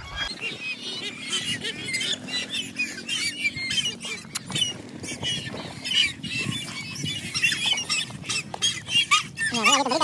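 Many birds calling at once: a dense, continuous chorus of short, high squeaky calls.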